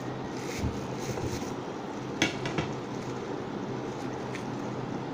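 A ripe jackfruit being pried and torn open by hand, giving a few light clicks and knocks, the sharpest about two seconds in, over a steady background hum.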